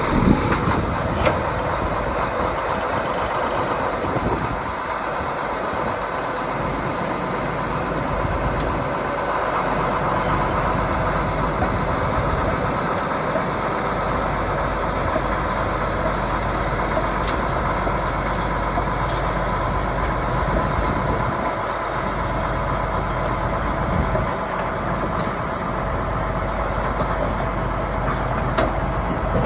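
John Deere 850 crawler dozer's diesel engine being started with the starter button, catching at once and then running steadily.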